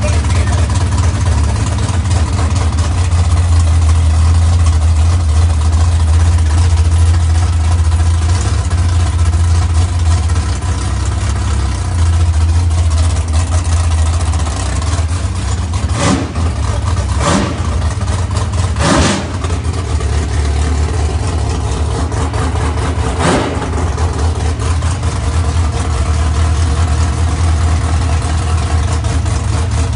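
A drag race car's engine idles loudly with a steady low rumble. Four brief sharp noises cut across it in the middle.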